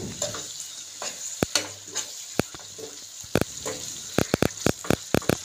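Thick tomato-onion masala sizzling in a non-stick frying pan as it is stirred with a spatula, with irregular sharp clicks and scrapes of the spatula against the pan over a steady frying hiss.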